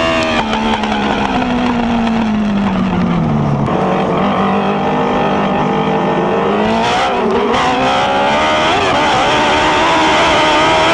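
Dwarf race car's motorcycle engine heard from the cockpit at race speed: the revs fall over the first few seconds, stay low for a few seconds, then climb again from about seven seconds in, the driver off the throttle through a turn and back on it down the straight.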